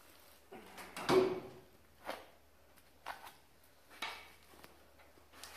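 A knife slicing through the meat and joint of a hanging deer's front shoulder, in short strokes about once a second, the loudest about a second in.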